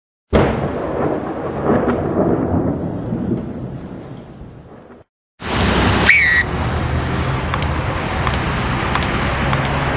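A sudden thunder-like crash that fades away over about four and a half seconds. After a brief break, a steady hiss of street traffic takes over, with a short rising high tone about six seconds in.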